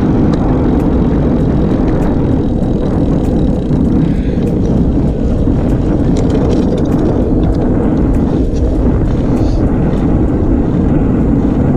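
Steady rush of wind buffeting the camera microphone, mixed with tyre noise on asphalt, as a road bike coasts downhill at speed. Faint scattered ticks sound over it.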